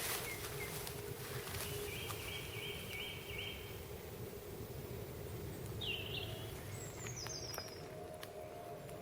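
Outdoor woodland ambience: birds calling, with a quick run of about five short notes about two seconds in and two brief calls later, the second one falling in pitch. Under them runs a steady low rumble.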